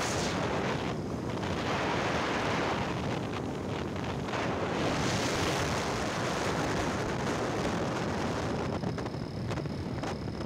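Wind rushing over the microphone of a rider on a moving motorcycle, a steady roar of noise that eases briefly about a second in and again near the end.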